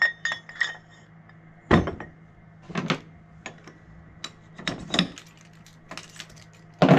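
Aluminum Weighsafe drop hitch parts clinking and knocking together as the ball mount is slid back onto the drop shank and its pin is set: a few quick ringing clinks, a heavier clunk about two seconds in, then scattered clacks.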